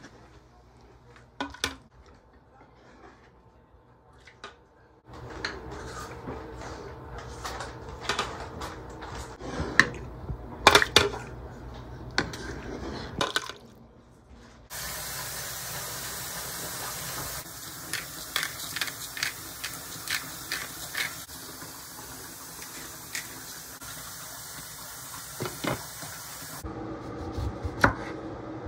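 Tap water running steadily into a bowl for about twelve seconds, after a stretch of scattered knocks and clatter of kitchenware. Near the end a knife chops on a wooden cutting board.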